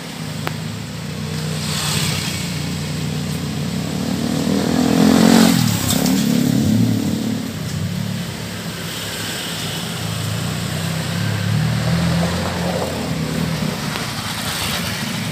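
A motor vehicle's engine running on the street, with a steady low hum throughout. One vehicle passes close by, loudest about five seconds in, its pitch dropping as it goes past.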